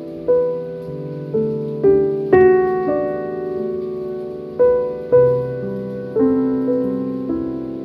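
Slow piano music: single notes and chords struck about once a second, each left to ring and fade.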